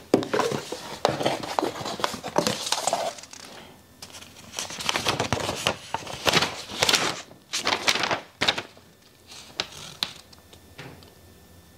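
Paper rustling and crinkling in irregular bursts as a printed paper receipt is pulled out, unfolded and handled. The handling is busiest in the first three seconds and again from about five to nine seconds in, then thins out.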